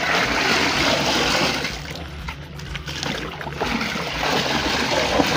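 Water sloshing and swishing as a hand stirs a barrel of foamy liquid fertiliser solution.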